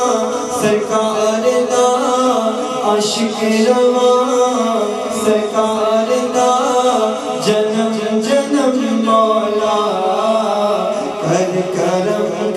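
A man singing a nasheed, an Islamic devotional song, into a microphone in a continuous chant-like melody with no instruments.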